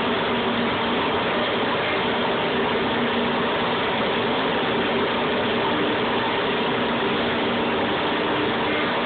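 VR 1005 TT CNC router running as its spindle heads work over a panel: a continuous machine noise with a few faint steady hum tones.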